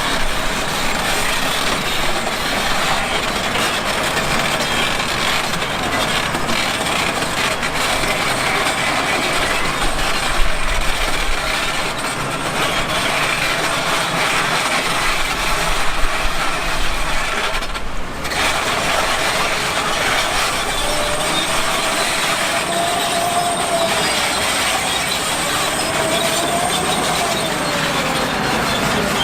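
Heavy earthmoving machinery working: a diesel engine runs under a steady dense clatter and rumble. In the second half a whining tone wavers up and down in pitch.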